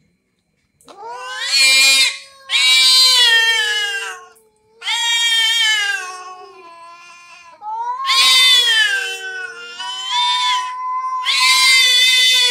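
Two cats yowling at each other in an angry standoff: long, drawn-out caterwauls that waver in pitch, one after another from about a second in, sometimes overlapping as both call at once.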